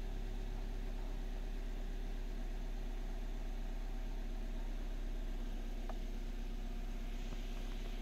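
Suzuki Swift's 1.3-litre four-cylinder engine idling steadily, heard from inside the cabin. The idle is a bit higher than normal, from a vacuum leak at the brake booster that leaves the engine running lean.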